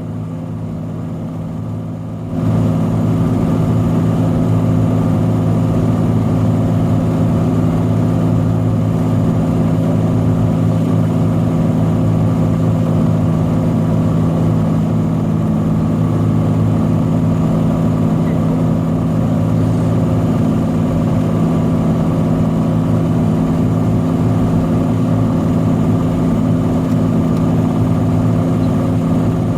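Cessna 182's six-cylinder Lycoming piston engine and propeller droning steadily, heard from inside the cockpit. The drone steps up in loudness about two seconds in, then holds even.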